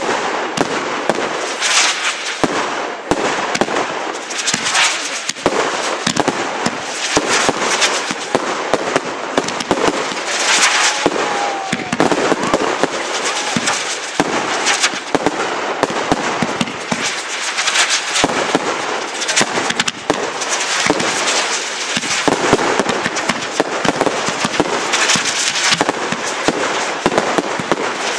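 Fireworks going off in a continuous volley: dense crackling and popping of aerial bursts, with louder flurries every few seconds.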